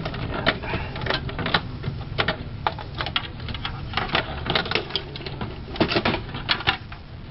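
Irregular run of sharp clicks and knocks as parts of an HP Z800 workstation are handled: a cable connector is unplugged, then the motherboard is worked loose and lifted out of the metal chassis by hand.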